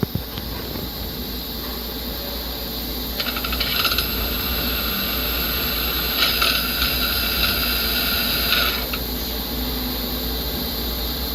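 Back-station power-driven tool spindles of a Star SR-32J Swiss-type CNC lathe running, driven through an exposed gear train, over a steady machine hum. A metallic gear rattle and whine comes in briefly about three seconds in and again for about two and a half seconds from six seconds in.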